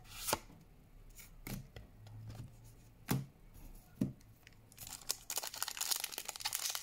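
A few light taps of trading cards being handled, then, from about five seconds in, a dense crinkling and rustling of a foil booster-pack wrapper being handled and opened.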